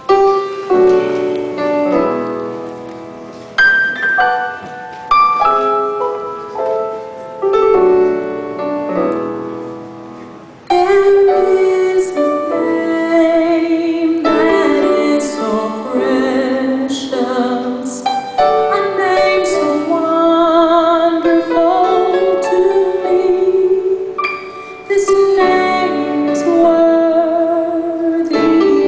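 A gospel song with a piano introduction. About eleven seconds in, a woman's voice comes in, singing with a wavering vibrato over the accompaniment.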